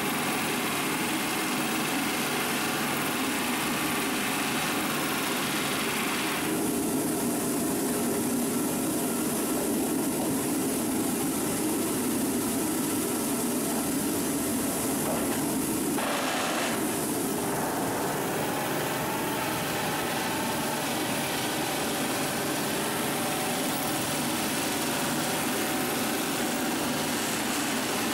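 Steady, loud industrial machinery noise, like engines and equipment running. Its character changes abruptly about six and sixteen seconds in.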